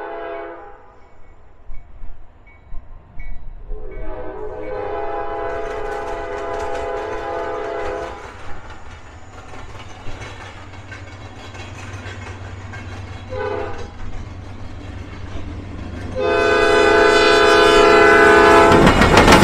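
Locomotive air horn sounding several blasts: a long blast, a short one and another long one. The pattern fits a grade-crossing signal as the train approaches. Near the end the train arrives with a loud rush of rumbling and wheel clatter.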